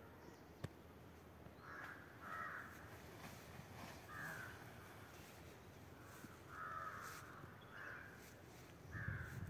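A crow cawing, about seven short harsh caws spaced irregularly, fairly faint. There is a single sharp click just after the start and a low rumble near the end.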